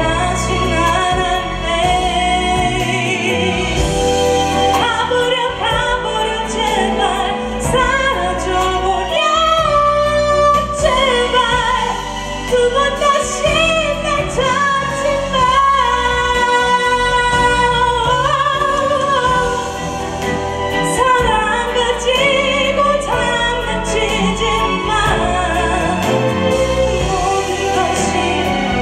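A woman singing a Korean song live into a handheld microphone over backing music, holding long notes with vibrato.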